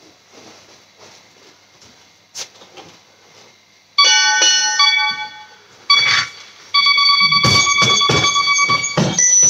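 Electronic round timer going off at the end of a workout round: a sudden run of piano-like electronic notes about four seconds in, a second run of notes, then a longer held tone. Heavy thumps sound under the tone near the end.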